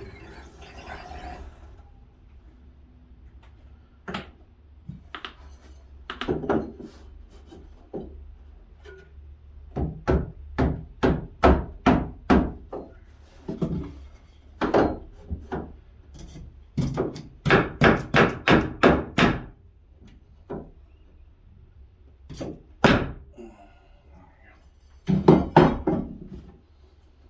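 Hammer blows on cherry-wood beams being knocked into place, in runs of quick strikes about two to three a second with pauses between.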